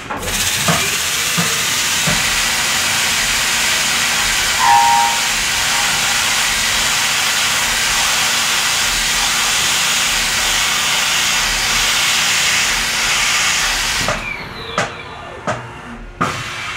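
A CNC mill's compressed-air spray hissing steadily at the cutter while a 5/8-inch drill cuts into an acrylic block, with a brief squeal about five seconds in. The hiss cuts off about two seconds before the end, leaving a few light clicks.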